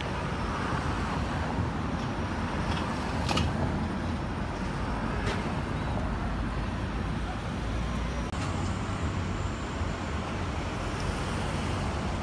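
City street traffic: cars and taxis running and passing, a steady wash of engine and tyre noise with low rumble, and a few brief sharp knocks about three and five seconds in.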